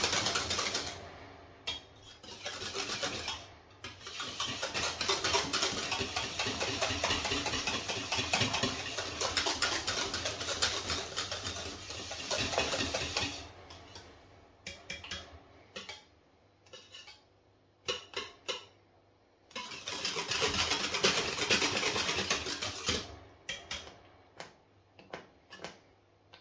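Wire balloon whisk beating thick pastry cream in a stainless steel saucepan, the wires scraping and clinking against the pan. Long spells of fast, continuous whisking are broken by stretches of slower, separate clinks.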